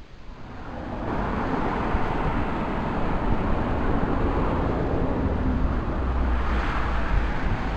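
Road traffic: a steady rush of cars passing on the road below, with gusts of wind rumbling on the microphone. The noise swells up about a second in.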